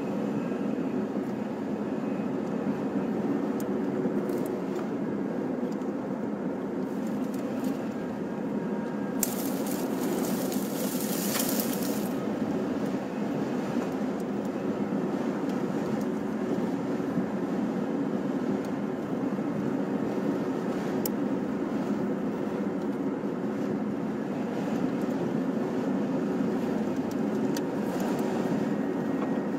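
Steady rushing noise inside a moving car's cabin, road and wind noise while driving through a dust storm. A short burst of higher hiss comes about nine seconds in and lasts some three seconds.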